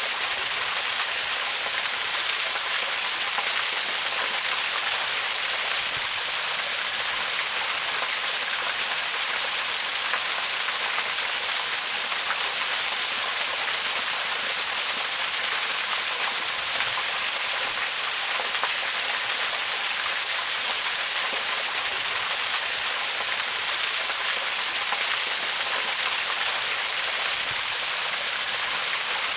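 Waterfall: a steady, even rush of falling water, mostly high hiss with little low rumble, unchanging throughout.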